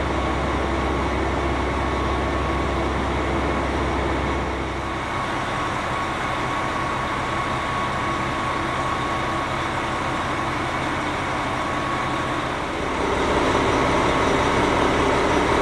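KiHa 261 series diesel railcar standing at the platform with its engines running, a steady mechanical rumble with a faint whine; it gets a little louder about thirteen seconds in.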